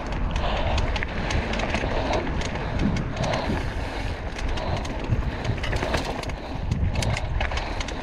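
Mountain bike rolling over a rocky dirt trail: tyre crunch and a steady rattle of small clicks and knocks from the bike, over a low rumble of wind on the microphone.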